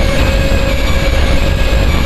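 Harsh noise music: a loud, unbroken wall of rumbling, grinding noise with steady droning tones held over it, unchanging throughout.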